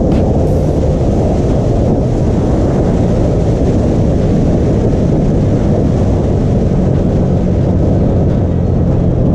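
Honda Click scooter with a 62 mm big-bore kit running on the road at a steady pace, its engine note under a loud, even rush of road and wind noise.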